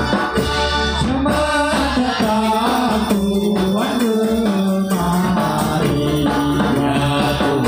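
Angguk dance accompaniment music: a sung melody over a steady percussion beat and a low bass line.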